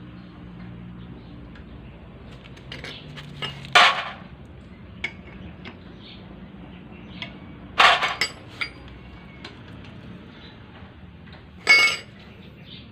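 Metal hand tools clinking against a motorcycle engine during reassembly. Three loud, sharp metallic clinks come about four seconds apart, with lighter ticks and taps between them.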